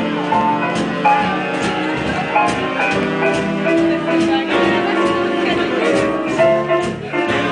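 Live swing jazz band playing a dance number with a steady beat.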